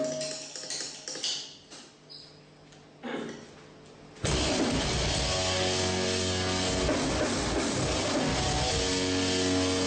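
Metalcore band playing live at a sound check: a few scattered drum and cymbal hits ring out, then about four seconds in the full band comes in loud with heavy guitars and drums.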